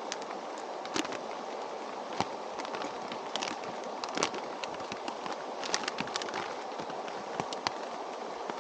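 Steady rush of rain and a nearby stream, with scattered irregular sharp ticks and crackles.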